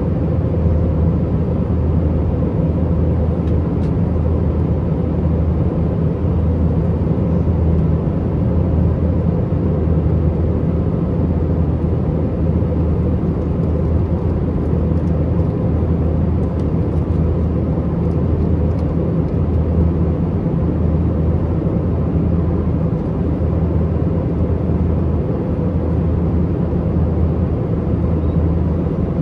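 Cabin noise of an Airbus A320-232 in flight: the steady drone of its IAE V2500 turbofan engines over a constant rush of air, with a low hum and no change in pitch or level.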